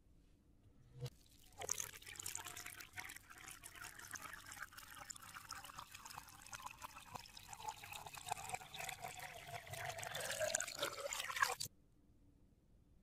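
A thin stream of water from a small hose splashing onto a mud-covered plastic toy tractor and the wet sand around it. It starts about a second and a half in, grows a little louder toward the end, and cuts off suddenly shortly before the end.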